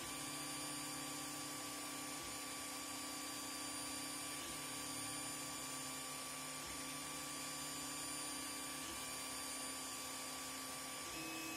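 Ender 3 Pro 3D printer's stepper motors humming steadily as the print head runs long infill lines, the tone breaking off briefly about every two seconds at each change of direction. Near the end the pitch steps up as a 10% print-speed increase (120% to 130%) takes effect.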